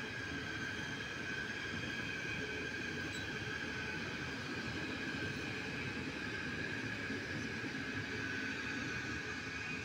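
KTM ETS electric train passing at speed: a steady rumble of wheels on rail with a steady high whine over it.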